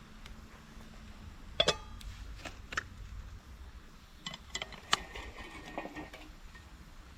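Metal camp cookware clinking: a few sharp clanks about a second and a half in, and a cluster more around four to five seconds, the later ones ringing briefly.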